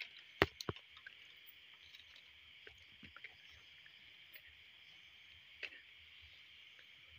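Steady night-time insect chorus, a continuous high buzz. A few sharp clicks and knocks sound about half a second in and again near six seconds in.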